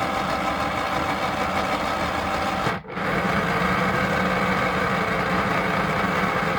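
Small electric motor of a Simba toy washing machine running steadily on its drain spin, with a brief drop-out about three seconds in.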